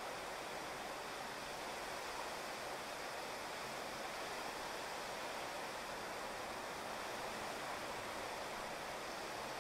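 Steady rain falling on a wet street: an even hiss with no single drops or other sounds standing out.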